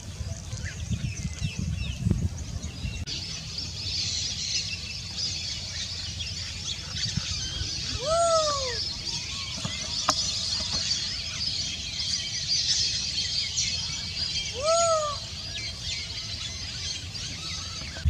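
Outdoor birdsong: many small birds chirping continuously in a dense high chorus, with two short calls that rise and fall in pitch, about six seconds apart.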